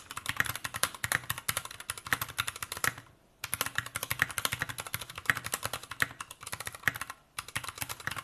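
Fast typing on an Anne Pro 2 60% mechanical keyboard with Gateron Brown tactile switches: a dense run of keystroke clicks, with a short pause a little after three seconds and a brief break near the end.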